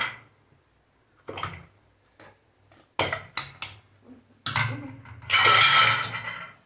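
Metal idli plates clattering and clinking as steamed dumplings are knocked off them. First come several separate knocks, then a longer, louder rattle and scrape in the second half.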